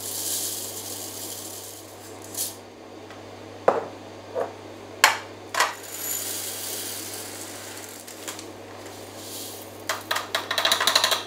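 Dried bee pollen granules poured from a plastic scoop through a plastic funnel into a glass jar: a hissing trickle of pellets in stretches, broken by about five sharp knocks of plastic against the funnel and jar. Near the end comes a fast run of small clicks.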